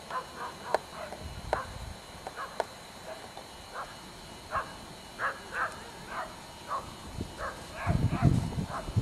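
A run of short animal calls, repeated irregularly about once or twice a second, with a louder low rumble near the end.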